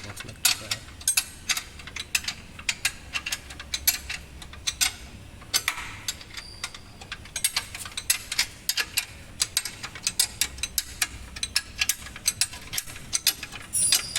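Ratchet wrench clicking in quick runs of sharp metallic ticks as bolts are run in and tightened on a refitted gearbox.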